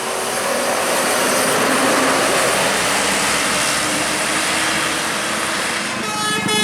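A large bus passing close by, its engine and tyres making a loud, steady rush. Just before the end a multi-tone air horn starts sounding a held chord.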